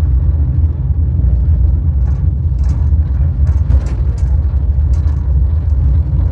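Museum cable car (inclined funicular) in motion on its way down to the undersea tunnel: a steady low rumble with scattered light rattles and clicks.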